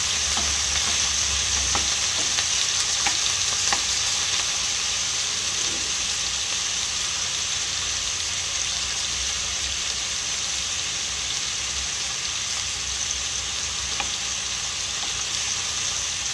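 Chicken pieces sizzling steadily in a frying pan, with a few light taps and scrapes of a wooden spatula turning them.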